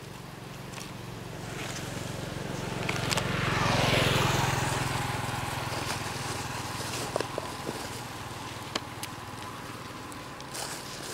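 A motor vehicle passing on the road: its engine hum grows louder to a peak about four seconds in, then fades away. A few light sharp clicks follow in the later seconds.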